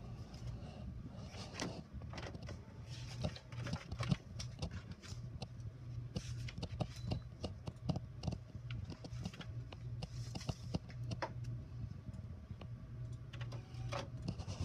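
HP Officejet all-in-one inkjet printer printing pages: a steady low hum with a busy run of short clicks and clacks from the printing mechanism.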